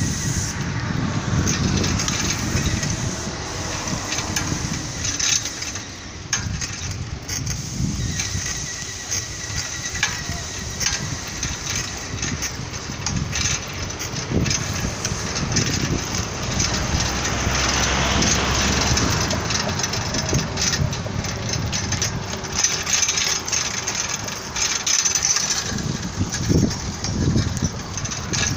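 Town street traffic: steady engine and tyre noise of motor vehicles, with one passing louder about two-thirds of the way in. Short knocks and rumble on the microphone run through it.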